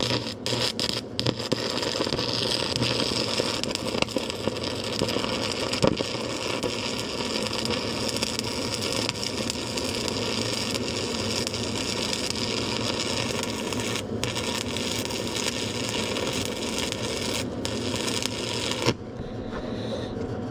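Stick-welding arc burning a 1/4 inch 7018 rod: a steady crackling sizzle that runs on evenly, breaks twice for an instant, and stops a second or so before the end.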